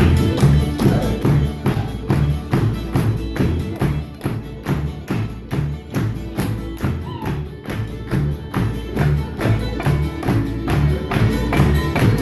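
Old-time string band music: a fast tune with a steady, quick beat and a strong bass line, with a bright tambourine-like percussive sound on the beat.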